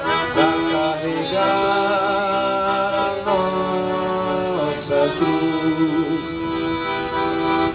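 Accordion music: the accordion plays held chords and a melody line that shifts to new notes every second or two.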